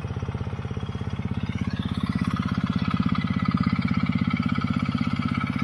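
Engine of a remote-controlled crawler tractor running with a rapid, even chugging, growing a little louder about two seconds in as it works.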